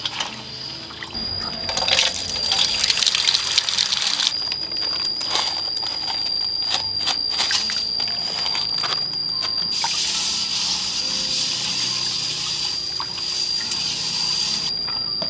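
Water running and splashing in two long spells, with scattered knocks and clatter between them, under a steady high-pitched whine.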